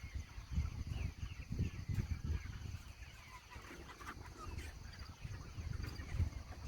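A flock of meat chickens calling, many short high cheeps overlapping throughout, over a louder uneven low rumble.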